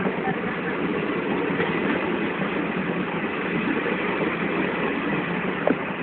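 Passenger coaches of an express train running past close by, a steady noise of wheels on the rails, with a brief sharp sound near the end.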